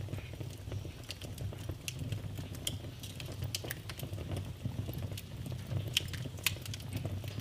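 Wood fire burning in a fireplace, crackling and popping in irregular sharp snaps over a steady low rumble, with a couple of louder pops near the end.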